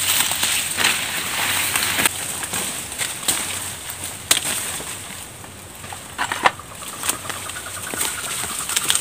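Dry banana leaves and undergrowth rustling as they are pushed aside and handled, with sharp snaps and cracks of stalks breaking scattered through.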